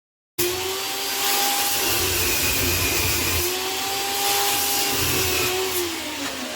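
Manual metal lathe running, a steady mechanical whine over a hiss; the whine slides down in pitch near the end.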